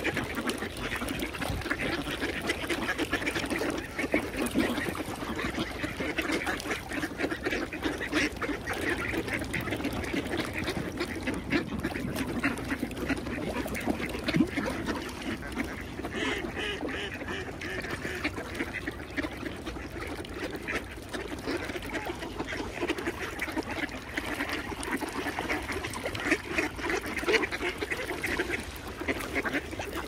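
A large flock of ducks quacking continuously, many birds calling over one another at a steady level.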